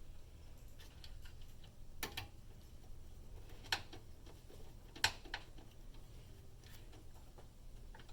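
Scattered light clicks and taps of computer parts being handled and a cable connector being plugged in. The three sharpest clicks come about two, three and three-quarter, and five seconds in, over a low steady hum.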